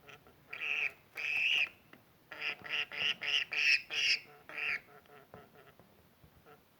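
Budgerigar (budgie) making unusual calls: two longer calls, then a quick run of about eight short calls at roughly three a second.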